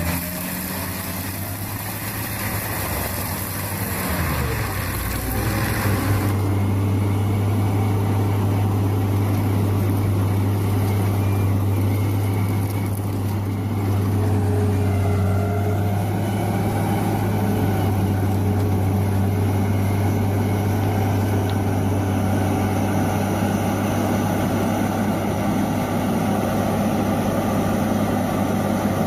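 A heavy machine's engine running with a deep, steady drone. Its pitch slides in the first few seconds, then settles and holds steady from about six seconds in.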